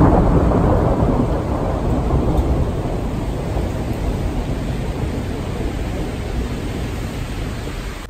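Thunder rolling in heavy rain, a deep rumble that is loudest at first and slowly dies away over several seconds.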